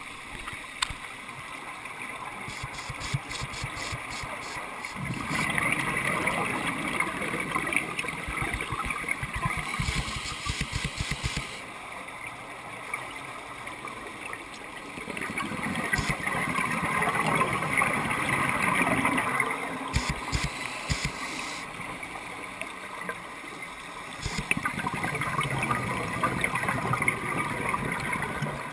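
Underwater sound of a scuba diver breathing through a regulator: exhaled bubbles gurgle and rush in three long bursts, each several seconds long, with quieter crackling stretches between breaths.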